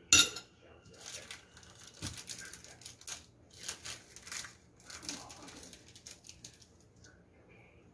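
A butter knife clinks sharply against a glass food container, then a few seconds of short scraping and rustling as the knife, bread and salad spread are handled.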